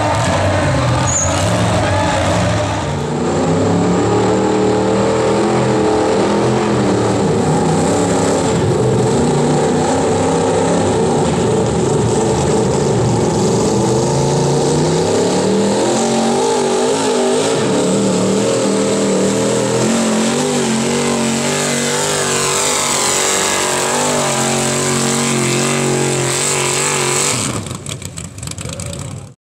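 Engines of sled-pulling vehicles running at high revs under heavy load while dragging a weight-transfer sled, the pitch rising and falling as the load and throttle change. The sound breaks up and cuts out near the end.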